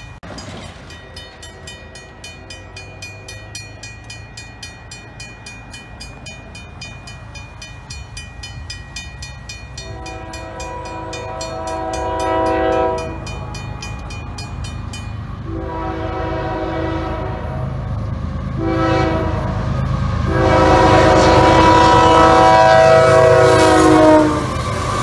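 Railroad crossing bell ringing in a rapid steady beat while an approaching CSX freight locomotive blows its air horn in the grade-crossing signal: two long blasts, a short one and a final long one, each louder than the last. The final blast ends just as the locomotive reaches the crossing near the end.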